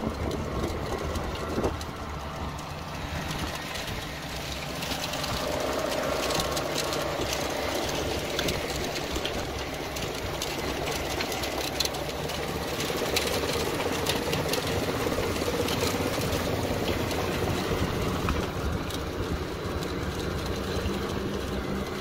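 Case MX110 tractor's diesel engine running steadily under load while pulling a seed drill, with rapid metallic clatter and ticking from the drill's coulters, springs and seed metering.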